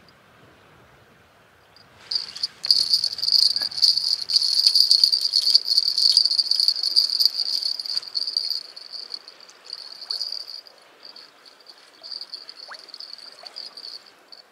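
A steady, high-pitched buzzing trill, insect-like, starting about two seconds in, loudest for the next several seconds, then fading and coming and going.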